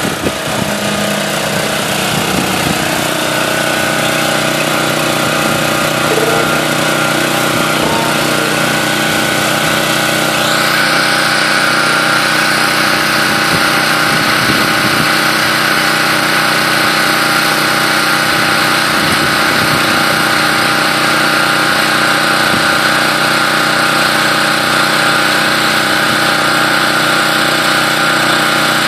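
An engine running steadily on a concrete pour site, with a higher whine and hiss coming in about ten seconds in and holding to the end.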